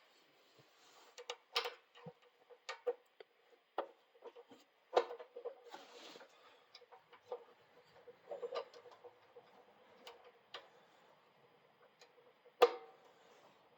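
Light, irregular clicks and taps of hand tools and metal fittings being handled while loosening and rerouting a mini bike's brake cable, over a faint steady hum.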